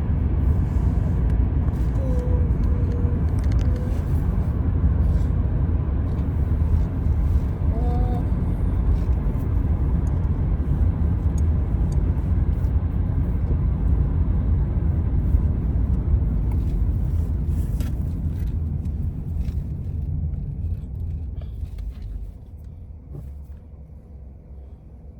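A steady low rumble like a running engine or vehicle, which fades away over the last several seconds.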